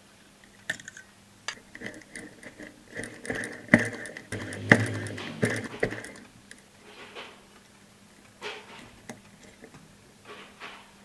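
Small metal clicks and taps from handling and fitting parts of a miniature brass model engine by hand, densest and loudest in the middle, with a faint steady high tone under the busiest stretch.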